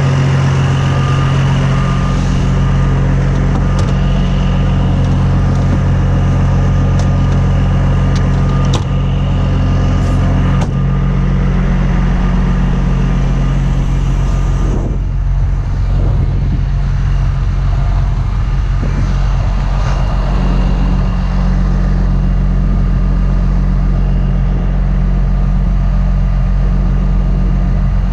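Heavy tow truck's diesel engine running steadily at a constant speed, with a couple of light knocks around the middle.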